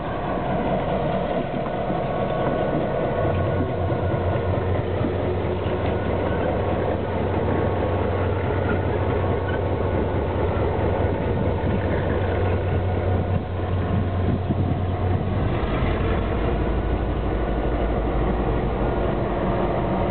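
Southern Pacific SD9 diesel-electric locomotive's EMD 16-567C V16 two-stroke diesel running at low throttle as the unit rolls slowly past. About fifteen seconds in, the engine's low hum drops to a deeper note.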